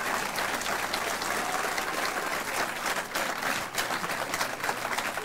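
Audience applause: many hands clapping steadily, welcoming a guest who has just been introduced.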